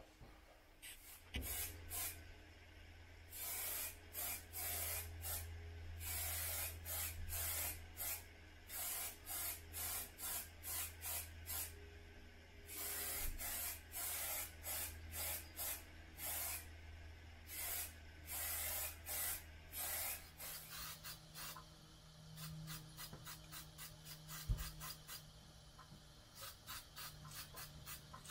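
Paint being sprayed onto a metal bunk frame in many short hissing bursts, each well under a second, with a lighter, quicker run of short sprays later on.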